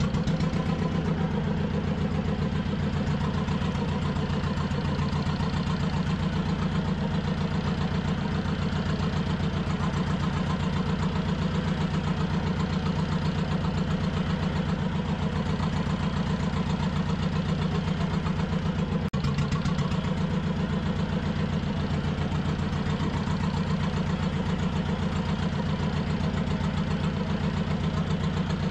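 A fishing boat's engine idling steadily with an even, fast pulsing beat.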